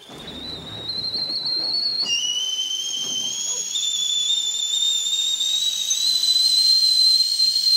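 High-pitched whistling tone that slowly rises in pitch and grows louder. About two seconds in it jumps to a lower and a higher tone sounding together, both still creeping upward.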